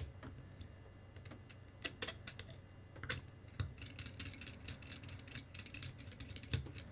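Irregular small metallic clicks and taps of a 2 mm hex driver working the screws of a brushless RC motor as it is stripped down.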